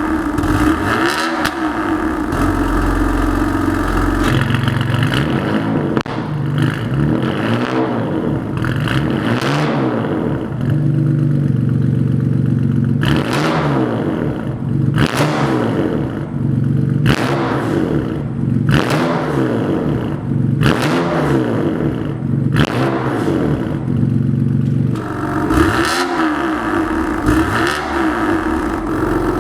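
BMW S55 twin-turbo straight-six breathing through an aftermarket exhaust, revved up and let fall again and again. Sharp cracks come between the revs in the middle part.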